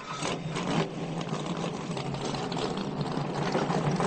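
Steady mechanical whirring and rumble of a car elevator lifting a car, growing gradually louder.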